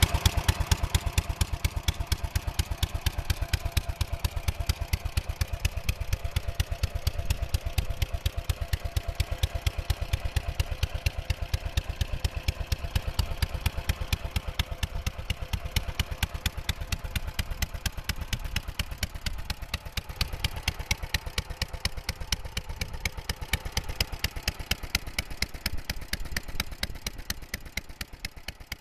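Labor P20 walking tractor's air-cooled single-cylinder engine idling, a steady rapid beat of firing pulses with some mechanical clatter.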